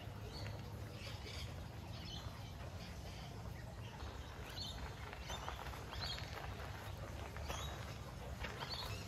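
Faint outdoor ambience: a steady low rumble with scattered short, high chirps and light ticks about once a second.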